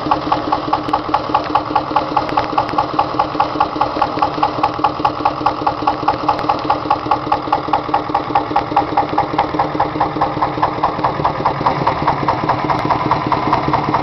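Petter PAZ 1 single-cylinder diesel engine running a Benford concrete mixer, with a steady, even beat of about four pulses a second.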